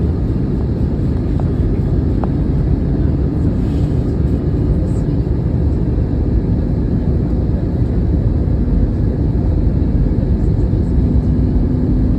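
Airbus A320neo cabin noise in flight: a steady low rumble of engines and airflow, with a faint constant hum and a few light ticks.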